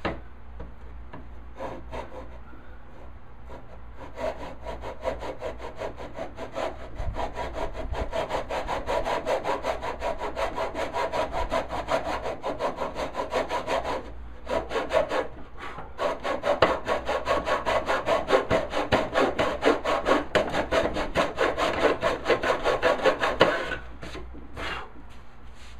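Hand saw cutting into a walnut board in quick, even back-and-forth strokes. The sawing starts about four seconds in, pauses briefly just past the middle, and stops near the end.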